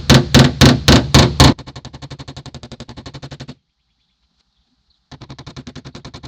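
Body hammer striking the steel door panel to knock down the crown of a dent: about six heavy, ringing blows at roughly four a second, then a quick run of lighter, faster taps. The taps stop for about a second and a half midway, then start again at the same quick pace.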